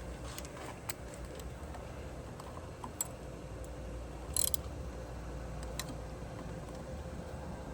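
Scattered light clicks and ticks of a 10 mm socket ratchet tightening bolts, with a sharper click about four and a half seconds in, over a low steady hum.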